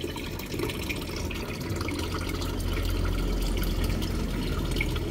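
Aquarium water running steadily, trickling and bubbling over a low hum, as from the tank's filter or air pump.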